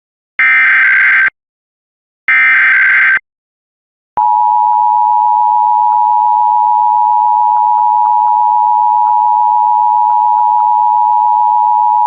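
Emergency Alert System broadcast: the last two of the three SAME digital header bursts, each a harsh data screech of about a second, a second apart. About four seconds in comes the EAS attention signal, a steady two-tone 853 Hz + 960 Hz tone, held for about eight seconds and cut off abruptly, announcing a Required Monthly Test.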